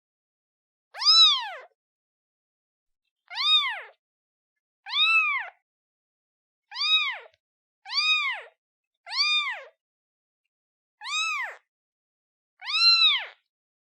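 Newborn kitten meowing for its mother: eight short, high meows about a second or two apart, each rising and then falling in pitch.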